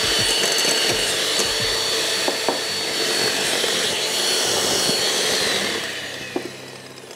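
Anex electric hand mixer with its twin beaters running in a glass bowl of eggs, beating them to a froth: a steady motor whine over a whirring rush that fades away near the end.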